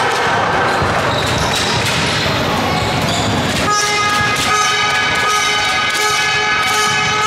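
Basketball bouncing on a sports-hall floor amid general hall noise, then about three and a half seconds in, music with steady held tones starts and carries on.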